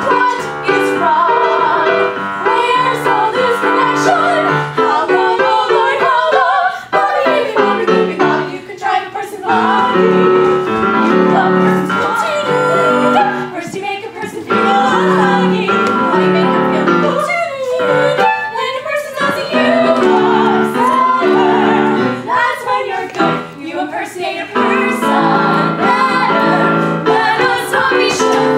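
Three female voices singing a close-harmony show tune live, with piano and drum kit accompaniment.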